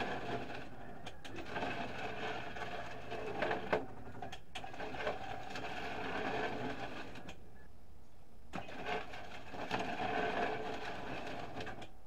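Electric motor turning the agitator blades inside a microwave pyrolysis reactor, a steady mechanical running with occasional clicks and knocks; it stops for about a second roughly seven and a half seconds in, then runs again. The blades are churning leftover carbon that will not come out, which the owner thinks may have set into clumps after cooling overnight.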